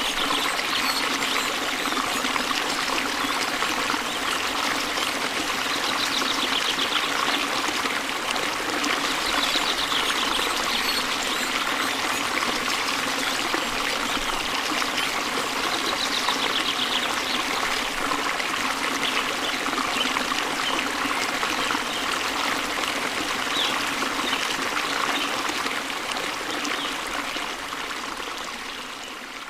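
Small waterfall running steadily, an even rush of water, fading out near the end.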